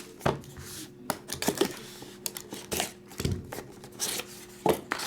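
Trading card box and its wrapping being opened and handled by hand: irregular tearing, crinkling and sharp clicks of cardboard and plastic.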